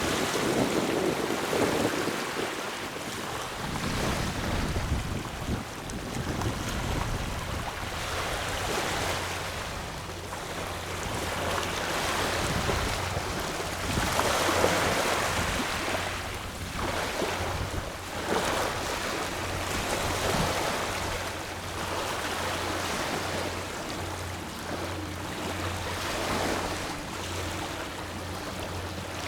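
Small waves washing onto a sandy river-mouth beach, the surf swelling and fading every few seconds.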